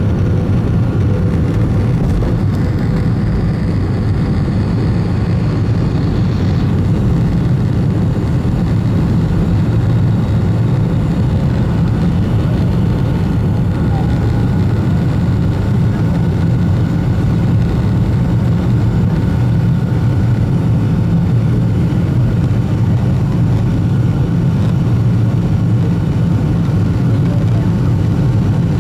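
Boeing 757 jet engines running steadily: a loud, even low noise with faint constant whine tones above it.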